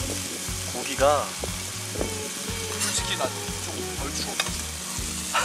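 Meat sizzling on a grill, a steady frying hiss broken by frequent small pops and crackles of spitting fat.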